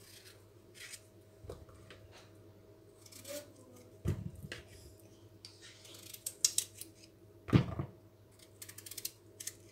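Small knife slicing through raw peeled potatoes held in the hand, a series of short crisp cuts, with two louder dull knocks, about four seconds in and again three and a half seconds later, as wedges drop into a plastic bowl.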